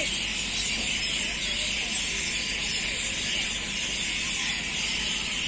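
Steady high outdoor hiss with faint distant voices.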